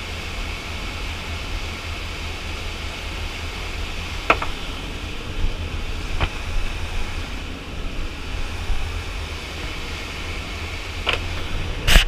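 Steady low drone of a large motor yacht running underway, mixed with rushing wind and water noise. A few sharp knocks from the camera being handled, the loudest near the end.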